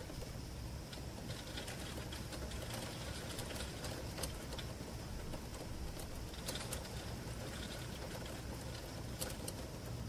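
Rain pattering on a bedroom window, heard from inside: many small irregular taps of drops striking the glass over a steady low background noise.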